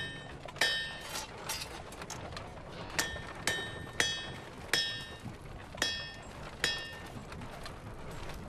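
Blacksmith's hammer striking a heated blade on an anvil. About ten blows ring out with a bright metallic tone, mostly about half a second apart, with a pause of over a second after the first few.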